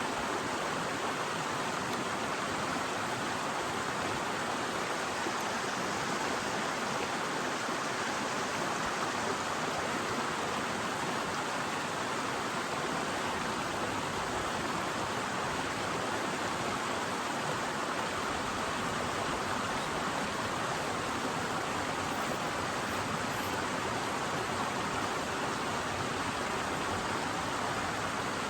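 Mountain river rushing over rocks: a steady, even wash of water noise.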